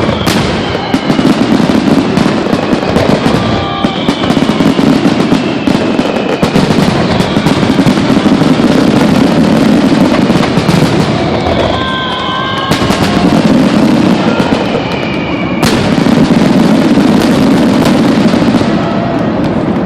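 Fireworks finale barrage: a dense, continuous crackle of shell bursts with a few sharp, loud bangs and several whistling shells gliding down in pitch.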